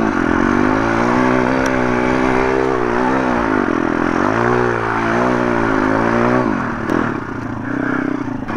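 MRF 140 RC pit bike's single-cylinder four-stroke engine revving up and down under throttle while being ridden. The throttle comes off about six and a half seconds in, and the engine drops to a lower, uneven note.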